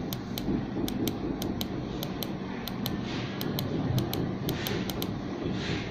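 Quiet room noise with a run of faint, sharp high-pitched ticks, several a second and unevenly spaced.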